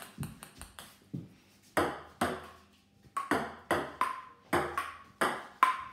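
Table tennis ball played on a wooden dining table: a quick run of small bounces in the first second, then a rally of sharp clicks as the ball strikes paddle and tabletop in turn, about two to three a second, some with a short ring.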